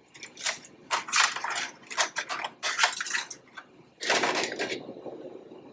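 Metal kitchen tongs clicking and clattering as seared chicken thighs are picked up: a quick run of sharp clicks, then a longer scraping clatter about four seconds in.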